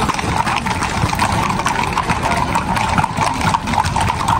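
Horses' hooves clopping on a hard surface as a group of horses walks past, many irregular knocks over a steady background din.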